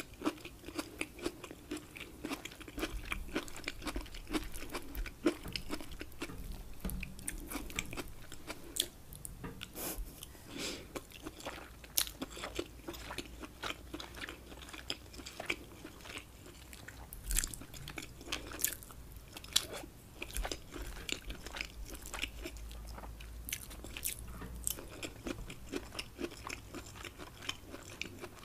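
Close-miked chewing of shrimp, scallops and rice in a creamy sauce: wet mouth clicks and smacks, several a second, irregular throughout.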